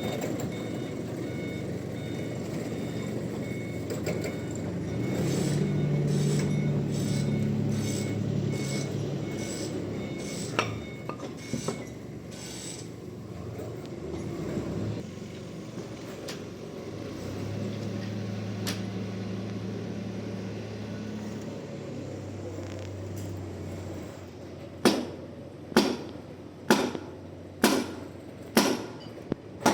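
Sawmill machinery running with a low hum that swells and fades twice, while a reversing beeper sounds faintly at first. Near the end come a series of sharp knocks, about one a second.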